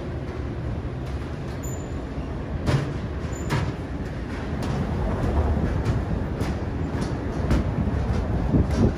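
Steady low rumble of city traffic, with a string of short knocks from footsteps on the stairs, coming faster near the end.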